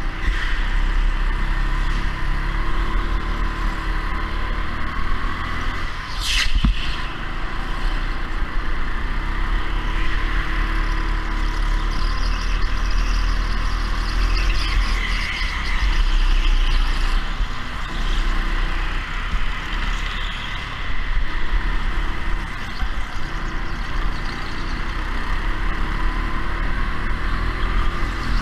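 Go-kart running at speed, its motor note drifting up and down with a heavy low rumble. There is a sharp knock about six and a half seconds in.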